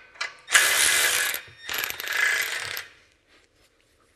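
Cordless M12 ratchet running in two bursts of about a second each, tightening the nuts on the exhaust flange bolts. A few short clicks come just before the first burst, and it falls quiet about a second before the end.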